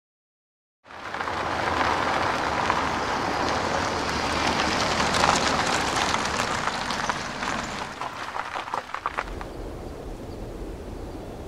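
A steady rushing hiss starts suddenly about a second in, with a few sharp clicks near the end of it. It then drops to a quieter hiss with a low rumble underneath.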